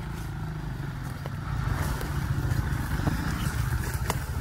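Off-road enduro motorcycle engine running as a steady low rumble that grows louder about a second and a half in.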